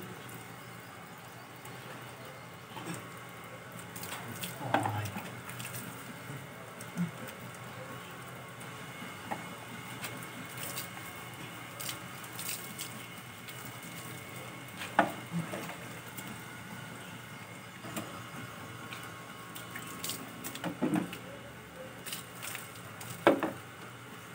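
Hands scrubbing a Belgian Malinois's wet, soapy coat, with squishing and splashing of water and scattered sharp clicks and knocks, a few louder ones.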